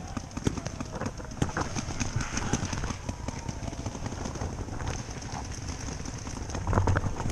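Footsteps and rustling as someone pushes through tall dry grass and brush, stalks swishing against clothing and gear in an uneven run of soft thumps and crackles, louder near the end.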